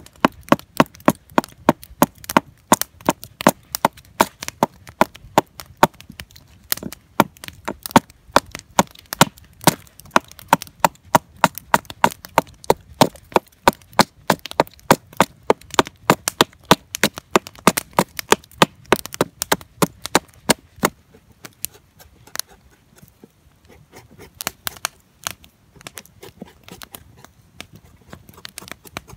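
Marbles 700DB double-bit hatchet chopping into a weathered dead log: a steady run of sharp wooden chops, about two or three a second, that give way to sparser, lighter strikes about two-thirds of the way through.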